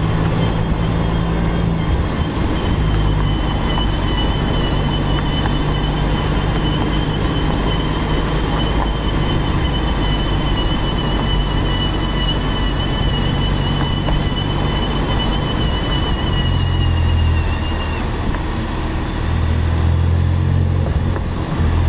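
Porsche 911 Carrera (996) driving with road and wind noise and a steady high whine from its front left wheel bearing, which is failing. The whine weakens about eighteen seconds in.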